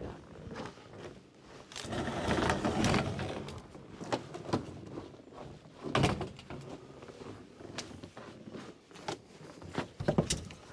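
A metal patio table being moved on a wooden deck: a stretch of scraping and rustling about two seconds in, then a string of knocks and thumps, the sharpest about six seconds in and several together near the end.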